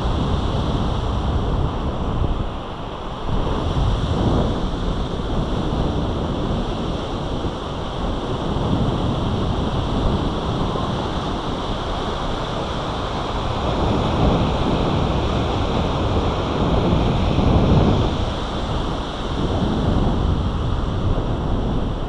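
Wind gusting against the microphone over a steady wash of ocean surf, rising and falling in strength.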